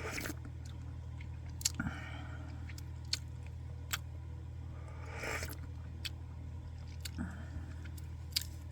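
Small sharp clicks of porcelain teaware being handled, about six spread irregularly, with two brief rustling or breathy noises about two and five seconds in, over a steady low hum.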